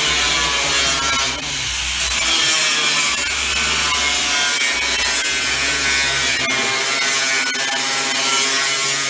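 Electric angle grinder running with its disc grinding against a steel sheet, a steady loud scraping whine that dips briefly about a second and a half in.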